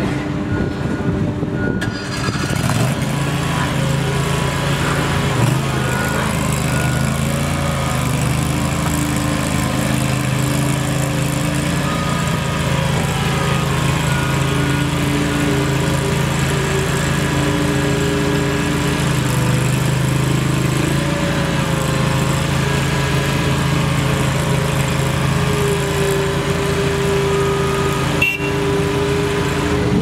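Engine of a stand-on mini track loader (skid steer) running steadily under load as it drives over gravel and works its bucket. Higher tones rise, fall and come and go over the engine note as the machine moves and the bucket is raised and lowered, with one sharp click near the end.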